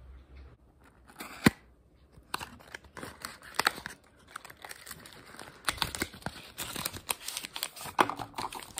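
Packaging of a disposable vape being handled in the fingers: crinkling, rustling and irregular sharp clicks as the cardboard box is turned over, busier from about two seconds in.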